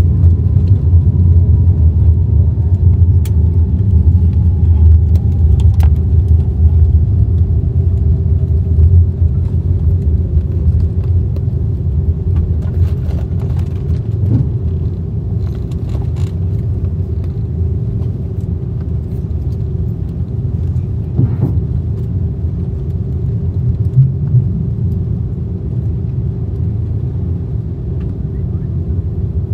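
Cabin noise of an Airbus A330-300 rolling out on the runway after landing: a loud, steady low rumble from the wheels and Rolls-Royce Trent 700 engines that eases slightly as the aircraft slows. A whine falls in pitch over the first ten seconds as the engines wind down, and a few light knocks sound along the way.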